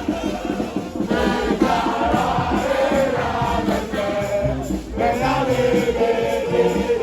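Music with voices singing together over a steady percussion beat, with a short dip about five seconds in.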